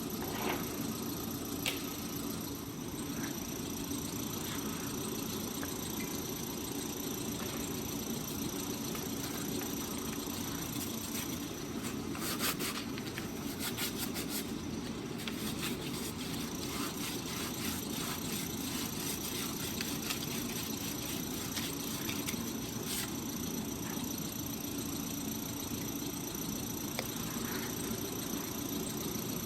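A steady machine hum runs throughout. Around the middle come a few seconds of quick scratchy rubbing strokes, fitting abrasive paper worked on the grinder mixer's metal shaft to clean it up.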